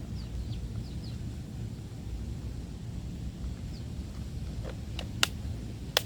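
Outdoor ambience: a steady low rumble, a few faint short bird chirps, and two sharp clicks near the end.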